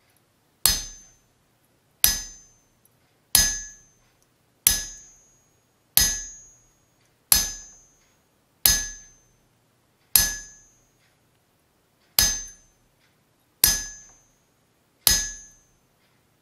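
Small hammer tapping a chisel against a thin steel plate on an anvil, chasing a decorative line pattern into the metal: eleven single blows, roughly one every second and a half, each a sharp metallic ring that dies away quickly as the chisel is lifted and reset between strikes.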